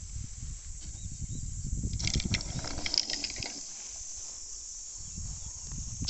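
Wind buffeting the microphone, then about two seconds in a brief rustling scrape, lasting about a second and a half, as a radio-controlled Ka 8 scale glider skids across the grass on landing and stops.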